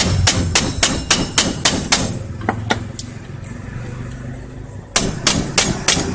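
Hammer striking a steel nail used as a punch to drive a crimped cylinder out of a lock held in a vise: a quick, even run of metal strikes, about three to four a second. After a pause of about three seconds, a few more strikes come near the end.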